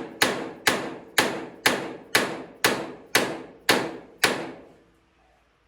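Steady hammer blows on ringing steel, about two a second, nine in all, stopping a little over four seconds in: shock-loading a stuck tractor steering wheel held in a puller to free it from its shaft.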